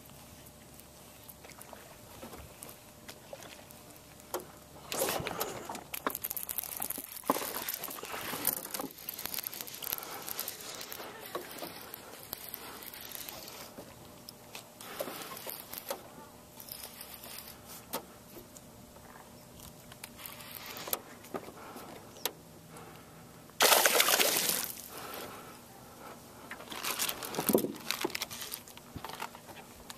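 Lake water splashing and trickling in irregular bursts, the loudest one about two-thirds of the way through.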